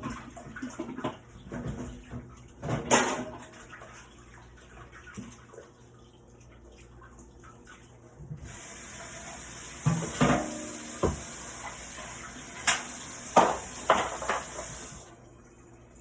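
Kitchen tap running for about six seconds, switched on about halfway in and cut off abruptly near the end, with dishes knocking and clattering under it. A few utensil knocks come before it.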